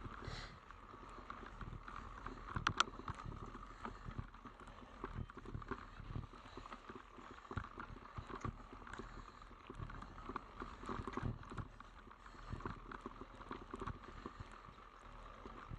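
Mountain bike jolting over a rough, technical forest trail: irregular knocks and rattles from the wheels and frame hitting roots and stones, with one sharper knock about two and a half seconds in.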